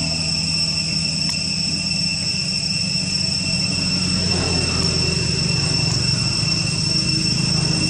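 A steady, high-pitched drone of insects over a constant low rumble.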